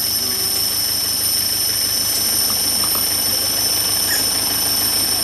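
Steady, high-pitched shrilling of a tropical forest insect chorus, several high tones held unbroken, over a low steady hum.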